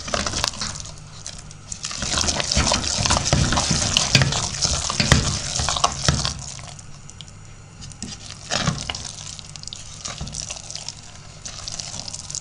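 Wooden spoon stirring a thick, wet paste of melting cheese curd in a stainless steel pot: squelching and scraping, busier for a few seconds after the start, then softer.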